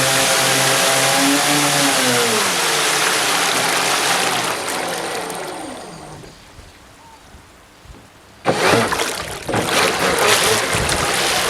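Twin electric jet drives of an RC jet boat running with a steady motor whine over rushing water. The whine rises briefly, then winds down, and the water noise fades out by about six seconds in. Around eight and a half seconds in, a loud rush of water cuts in suddenly and surges twice.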